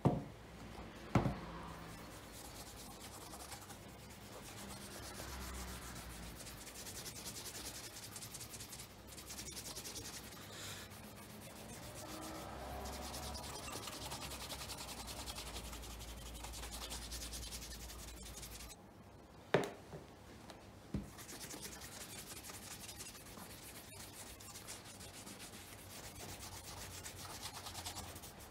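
Cloth rubbing back and forth over a leather dress shoe, a steady scratchy swishing. Two short knocks near the start and two more around twenty seconds in.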